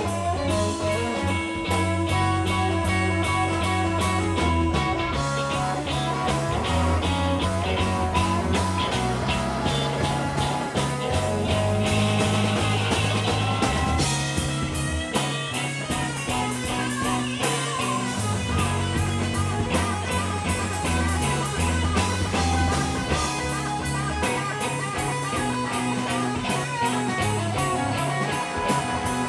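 Live blues-rock band playing: electric guitars over bass guitar and drum kit, with no singing, in a slow blues.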